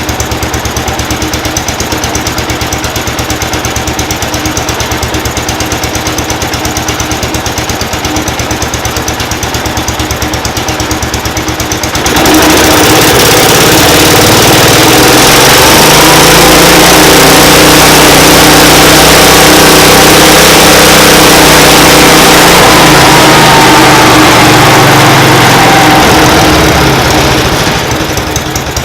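1970 Cub Cadet Model 147 garden tractor's single-cylinder Kohler engine, just started for the first time in years, idling low and then opened up suddenly about twelve seconds in to a much louder, faster run, dropping back near the end. It is running a little rough, which the owner puts down to a carburettor needing a rebuild.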